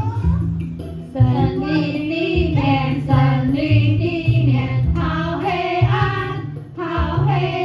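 A song with several voices singing together over backing music with a strong, steady bass beat.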